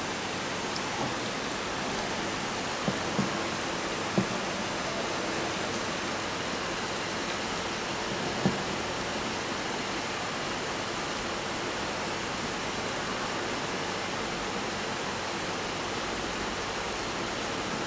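Steady hiss of background noise, with a few light knocks, a pair about three seconds in and single ones at about four and eight seconds, as the metal combs of a cotton fibre comb sorter are handled.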